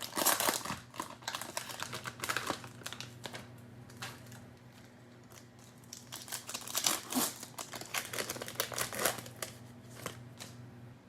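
Cellophane wrapper of a trading-card pack crinkling as it is handled and opened by hand. The crinkling comes in irregular bursts, busiest at the start and again after about six seconds.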